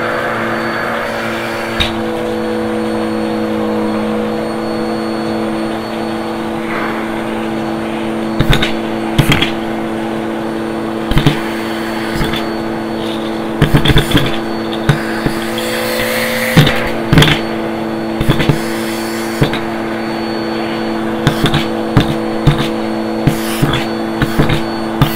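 Vacuum cleaner running steadily with a humming motor, its wand sucking up plastic bottle caps. From about eight seconds in, irregular sharp clacks and rattles come as caps are pulled in and clatter through the hose.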